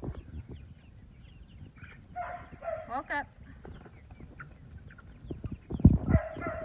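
A flock of young chickens (started pullets) giving many short, high cheeps and clucks as a dog herds them. Several low thumps near the end.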